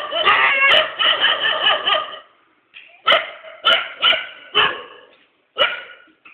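Several dogs barking: a rapid run of overlapping barks for about two seconds, a short pause, then single barks at uneven intervals of about half a second to a second.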